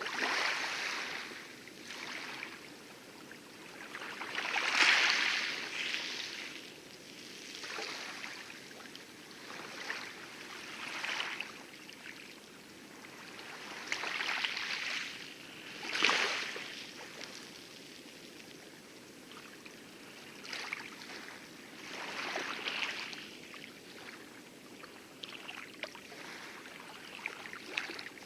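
Light waves lapping and splashing on coral at the lagoon edge of an atoll, in irregular swishes every second or two, over a steady low wash of distant heavier surf.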